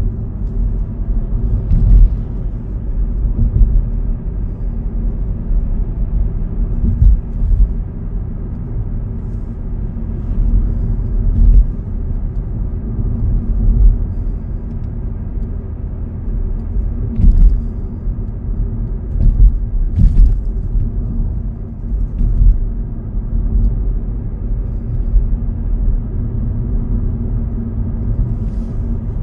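Cabin sound of an Audi A4 B6 2.5 TDI V6 being driven: a steady low rumble of the diesel engine and tyres, with a few short knocks as the car goes over uneven road.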